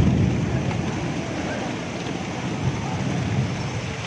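Steady rain falling, with a low rumble that is loudest at the start and rolls on, swelling and slowly fading.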